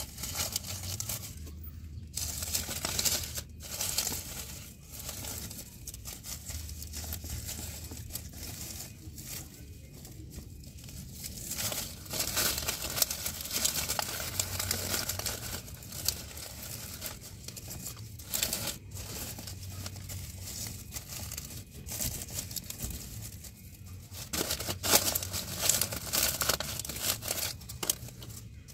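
Dry leaves and a burlap sack lining a nest rustling and crinkling as a hand moves among the eggs, on and off with brief pauses.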